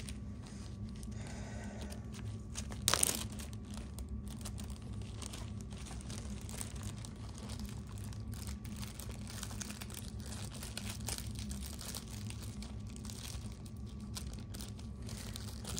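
Crinkling and handling of covering pieces being pressed onto a packed wheel hub to keep the bearings in, with one sharp knock about three seconds in, over a low steady hum.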